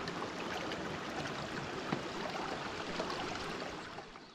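Shallow mountain creek running over rocks, a steady babbling rush that fades away near the end.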